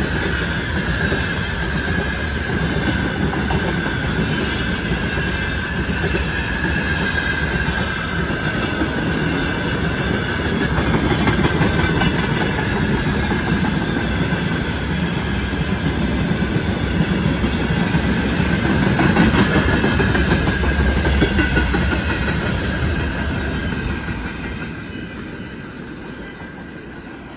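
Freight train wagons rolling past close by: a steady heavy rumble of wheels on rail with a clickety-clack over the rail joints and a steady high-pitched wheel squeal. The sound fades away over the last few seconds as the end of the train moves off.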